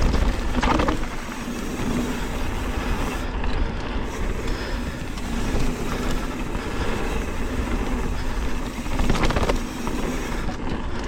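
Wind rushing over the microphone and tyres rolling over a dirt flow trail as a Chromag Dr. Hawk hardtail mountain bike descends at speed, a continuous rumble with two brief sharper rasps, one about a second in and one near nine seconds.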